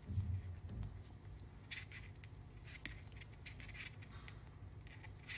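Knitting needles working stitches: faint, scattered ticks and light scrapes as the needle tips meet and slide through the yarn, with a soft low bump near the start.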